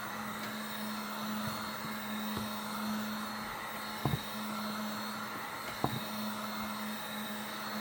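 Electric heat gun running steadily with a constant hum, warming a polyurethane wheelchair tire inside a box to soften it for stretching onto the rim. Two light knocks sound about four and six seconds in.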